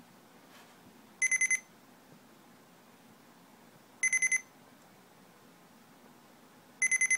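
Digital alarm clock going off: three bursts of quick, high-pitched electronic beeps, four or five beeps each, a little under three seconds apart.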